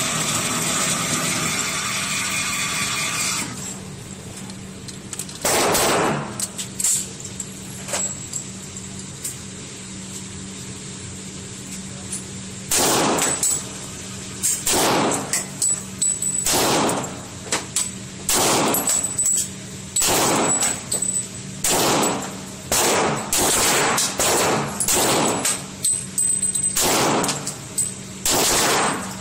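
.40-calibre Taurus pistol firing single shots, echoing in an indoor concrete range: one shot about six seconds in, then a steady string of shots about one a second from about 13 seconds on.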